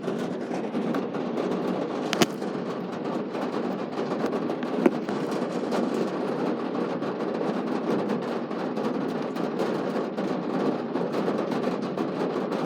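Rain falling steadily in a thunderstorm, with two sharp taps about two and five seconds in.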